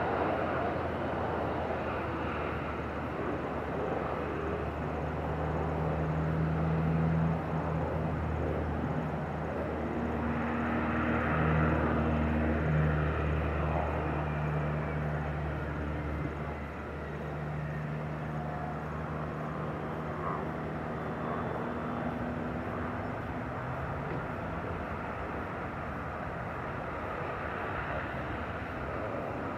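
Jet engines of a Boeing 737-300 (CFM56-3 turbofans) rumbling steadily, heard from a distance as the airliner lands and rolls out along the runway. There is a low hum that is loudest in the first half and eases off after about sixteen seconds.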